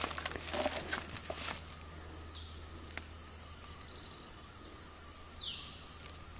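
Paper crinkling and small clicks as a salmon is handled and cut on a sheet of paper, for the first second and a half. Then wild birds call: a quick downward-slurred whistle, a high buzzy trill lasting over a second, and a second down-slurred whistle near the end.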